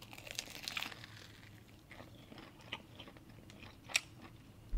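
Biting into and chewing a fried chicken drumstick: soft crunching of the breaded crust, with a few sharp crackles, the loudest about four seconds in.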